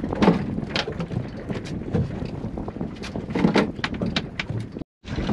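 Wind buffeting the microphone on an open boat, with scattered knocks and splashes. The sound drops out for an instant near the end.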